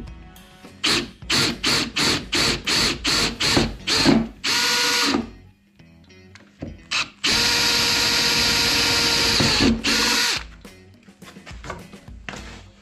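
Makita 18V cordless drill boring through a car door panel with an 8.5 mm bit. It starts with a string of short trigger bursts, about two or three a second, then runs steadily twice, the second time for about three seconds with a steady motor whine.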